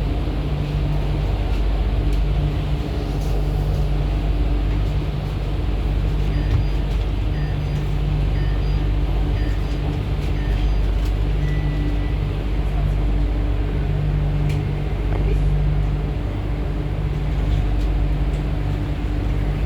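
MTR Island Line Q-Train electric multiple unit running between stations, a steady rumble of wheels on rail and traction equipment with faint steady tones over it.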